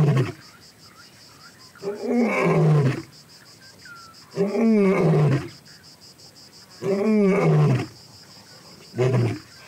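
Adult male African lion roaring: a series of deep moaning calls, each about a second long and falling in pitch, repeated about every two and a half seconds. It is the roaring bout by which he calls his pride to the kill. Insects trill faintly behind.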